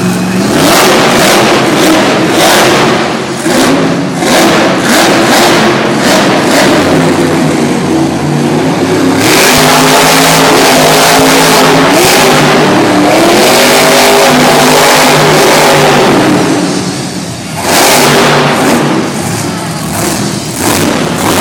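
Monster truck's supercharged V8 revving hard in repeated bursts, then held at high revs for several seconds with the pitch rising and falling. It drops briefly near the end, then revs up again.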